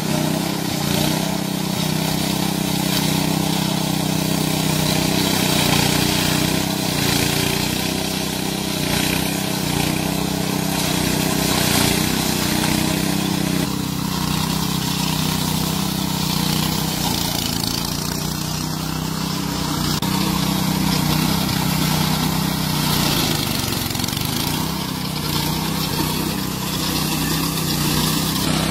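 Small petrol engine of a home-built remote-controlled lawn mower running steadily under load as the mower drives through grass.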